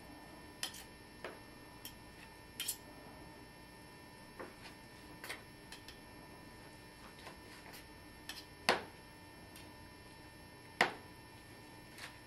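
Knife slicing cooked chicken thighs on a cutting board: irregular light taps of the blade on the board, with two louder knocks near the end.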